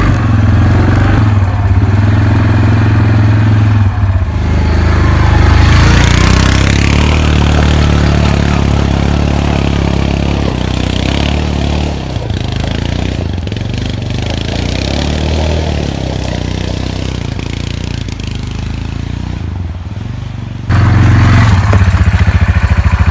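ATV engine running on a rocky trail, revving up about five seconds in. From about twelve seconds it is farther off and quieter, then near the end it is suddenly loud and close, with a quick steady pulse.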